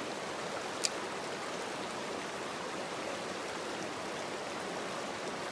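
Shallow rocky creek flowing steadily over stones and riffles, with a single sharp click about a second in.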